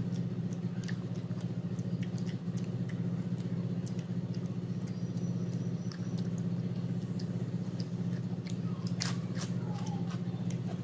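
Close-up chewing and small mouth clicks of a person eating by hand, over a steady low hum, with a couple of sharper clicks about nine seconds in.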